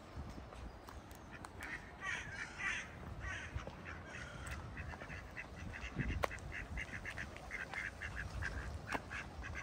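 Geese honking: a few scattered calls at first, then a quick run of short honks, about three or four a second, from about halfway through.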